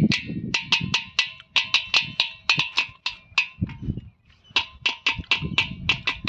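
Rhythmic percussion: quick, sharp clicking strokes, about five a second, over a steady ringing tone. The strokes break off for about a second midway, then start again.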